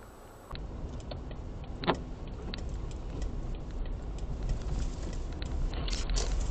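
Car-interior dashcam audio of a car driving on a snowy road: a steady low road and engine rumble with scattered sharp clicks and rattles, and one louder knock about two seconds in. The clicks come thicker near the end.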